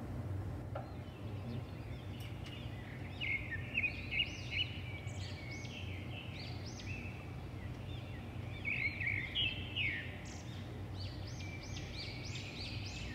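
Birds chirping in a rapid series of short high calls, beginning about three seconds in, over a steady low hum.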